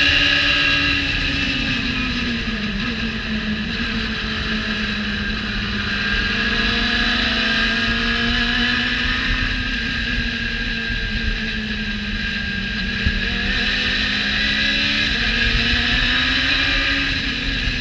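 Radical SR3 race car's motorcycle-derived four-cylinder engine at speed on track, heard onboard with heavy wind rush. The engine note drops a second or two in as the car slows for a corner, then holds and climbs slowly, dipping again near the end before rising.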